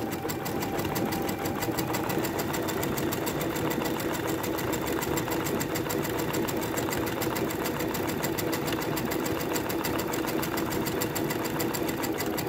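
Brother Innovis Quattro 2 (6700D) sewing machine running steadily at high speed while sewing a decorative stitch, its needle strokes coming in a fast, even rhythm.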